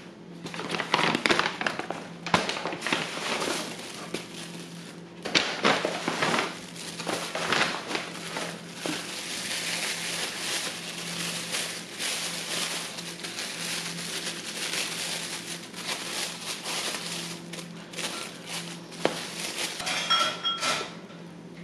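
Thin plastic bags crinkling and rustling in bursts as croissants are unwrapped by hand.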